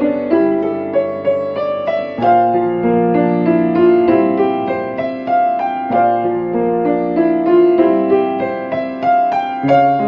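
Solo piano playing a gentle new-age piece with both hands: flowing broken chords and a melody over held low bass notes. A new bass note enters about two seconds in and again about six seconds in.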